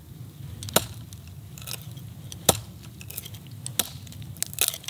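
TB Outdoors Vengeur survival knife blade striking and stabbing point-first into a dry log: a handful of sharp, irregular knocks and cracks of wood, the loudest about halfway through and several close together near the end.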